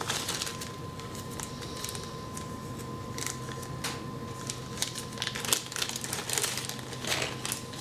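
A small clear plastic parts bag being handled and opened by hand, giving irregular crinkling and rustling with scattered small ticks. A faint steady hum sits underneath.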